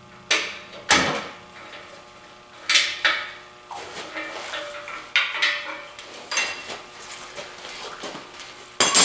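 Sharp metal clanks and rattles, about seven strong ones, from ratchet straps with steel hooks being unhooked and pulled off an engine hoist and its chain, with a denser clatter near the end.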